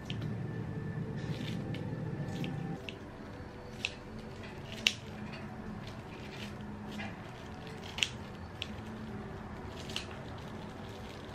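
Kitchen scissors snipping through cabbage kimchi: a string of short, sharp cuts about once a second. A low hum runs under the first three seconds and then stops.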